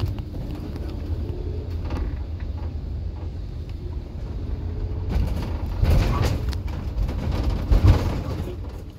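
Police van driving, heard from inside the rear cabin: a steady low engine and road rumble, with a few louder knocks and rattles about five to eight seconds in.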